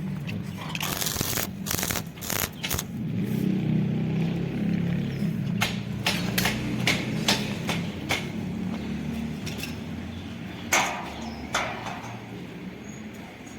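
A series of sharp metal knocks and clanks, in clusters, over a steady low engine-like hum.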